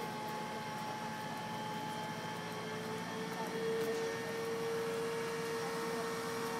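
Mobile crane running steadily with a mechanical hum and a thin whine that grows stronger about three seconds in.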